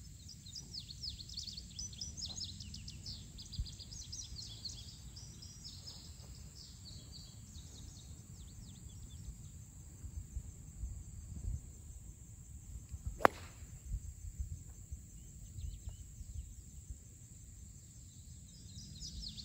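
A golf club striking a ball off the tee: one sharp crack about two-thirds of the way through, the loudest sound. Under it, wind rumbling on the microphone and birds chirping, the chirps busiest in the first half.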